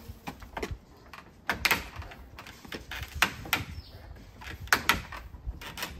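PVC fence slats and top rail knocking and clicking as the slats are worked by hand into the rail: about a dozen sharp, irregular taps.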